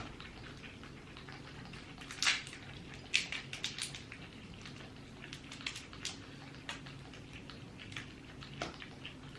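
Close-up eating sounds: scattered wet mouth clicks and smacks of chewing, with a cluster about two to four seconds in.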